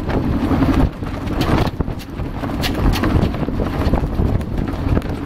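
Wind buffeting the microphone aboard a sailboat under way, a steady low rumble with scattered sharp clicks and knocks from the boat.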